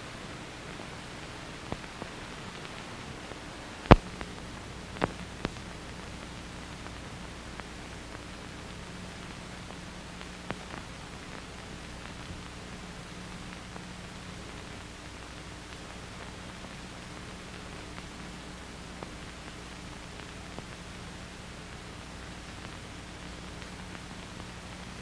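Background noise of an old film soundtrack with no narration: a steady hiss and low hum, broken by a handful of sharp clicks. The loudest click comes about four seconds in.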